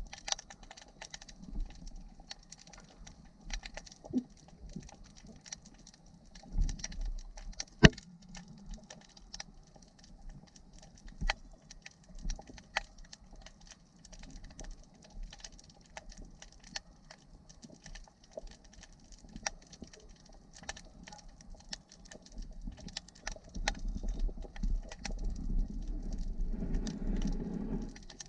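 Underwater sound during spearfishing: scattered sharp clicks and crackles over a faint hiss, with a louder low rush of water from about three-quarters of the way through.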